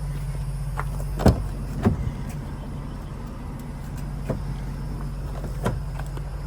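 Ford Transit van's engine idling steadily, with a few short sharp knocks over it, the loudest about a second in.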